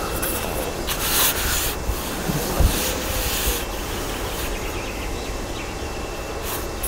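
Carbon fishing pole being shipped out, its sections sliding and rubbing through the hands in two scraping stretches, with a dull knock about two and a half seconds in, over a low steady rumble.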